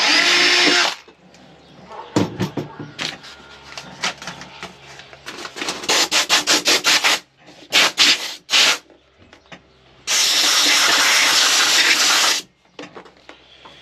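Cordless drill running for about a second, drilling a rivet hole for a support bracket. Next come a quick run of scraping strokes with a hand tool at the hole, and then the drill runs again for about two seconds.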